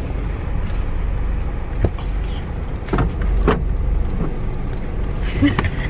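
Car interior noise while driving: a steady low engine and road rumble, with a few short clicks about two and three seconds in.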